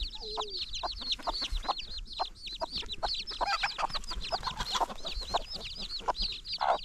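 Newly hatched chicks peeping shrilly and continuously, several peeps a second, while the mother bantam hen gives low, broken clucks as she guards them.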